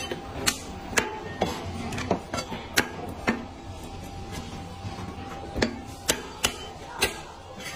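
Chinese cleaver chopping cooked duck pieces through the bone on a thick wooden chopping block: a string of sharp chops, one or two a second at an uneven pace.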